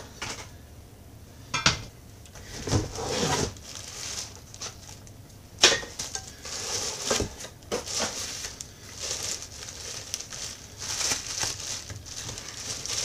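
Unpacking handling sounds: cardboard packing pulled from a box, a few sharp knocks of cookware against the box, then a plastic bag crinkling around a copper-coated saucepan as it is lifted out and unwrapped.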